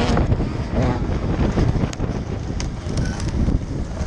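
Motocross bike engine running under the rider, heard through heavy wind noise on the onboard camera microphone; the engine note drops back about a second in as the throttle is eased.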